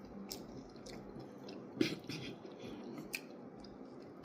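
A person chewing homemade hot wings coated in hot sauce and honey, with wet mouth noises and a few sharp clicks, the loudest about two seconds in.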